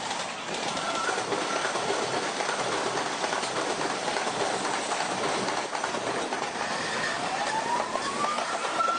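Electric train running through a junction, its steel wheels clattering over the points and rail joints. Near the end a whine rises in pitch and then holds steady.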